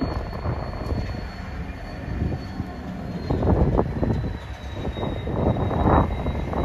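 GBRF Class 66 diesel locomotive moving slowly towards the listener, its two-stroke EMD V12 engine running with a low rumble that swells loudest about three and a half seconds in and again near six seconds.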